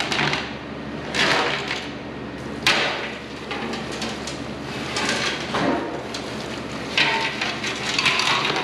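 Steel nuts rattling and clattering inside a rusty metal snowmobile fuel tank as it is tipped and shaken, in irregular bursts. Gasoline and rusty sludge pour out into a plastic drain pan: the nuts are scouring rust from the tank during a flush.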